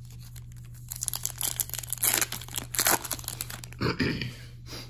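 Plastic foil trading-card pack wrapper being torn open and crinkled by hand, a run of irregular crackling rips over a couple of seconds, with a shorter burst near the end.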